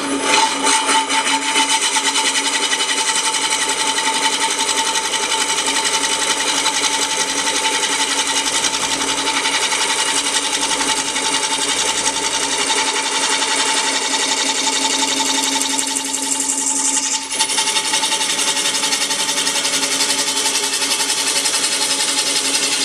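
Delta 16/42 wood lathe running while the Ringmaster's cutter cuts a ring from the spinning glued-up wood disc. It makes a loud, steady buzzing whine that starts abruptly and dips briefly about sixteen seconds in.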